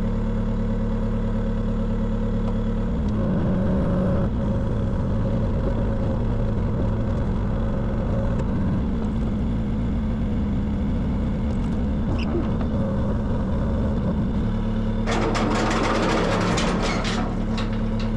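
Engine of the lifting machine running, working harder from about three seconds in until near fifteen seconds while the truck bed is lifted and set down. Near the end it settles back to a steady run, with a burst of rattling and clanking over it.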